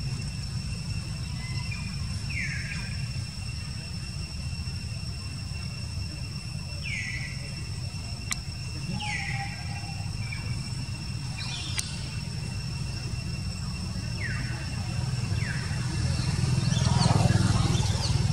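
Outdoor ambience of a steady low rumble and a faint steady high whine, with short chirping animal calls every few seconds, each falling in pitch.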